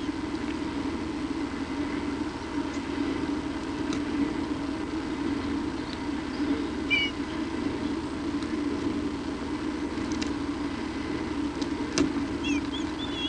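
A steady low hum, with a few short high chirps about seven seconds in and again near the end, and a few faint clicks.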